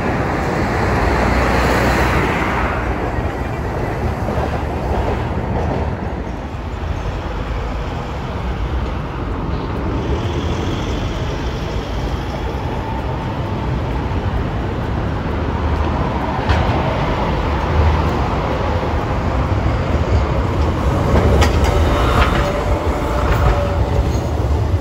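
Hiroshima street trams and traffic running past a tram stop: a tram and a city bus go by at the start, and near the end a Green Mover LEX low-floor tram passes close with a rising motor whine over the rail and road noise.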